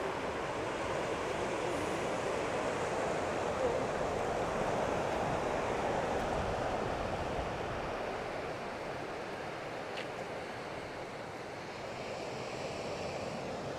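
Sea surf washing in, mixed with wind on the microphone: a steady rushing noise that eases slightly in the second half.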